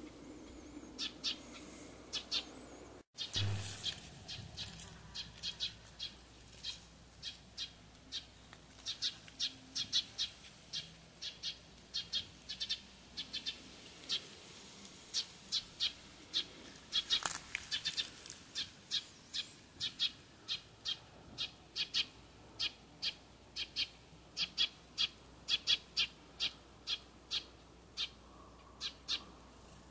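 Small birds chirping: short, sharp chirps repeating about two or three times a second, with a brief break in the sound about three seconds in.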